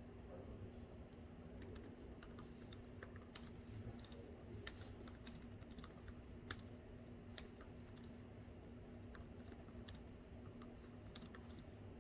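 Faint typing on a laptop keyboard: irregular soft key clicks, over a steady low hum.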